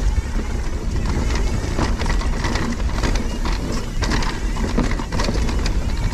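Husqvarna Mountain Cross MC4 electric mountain bike ridden along a dirt singletrack: tyres running over dirt and leaves, with irregular knocks and rattles from the bike over bumps and a heavy low rumble of wind on the microphone.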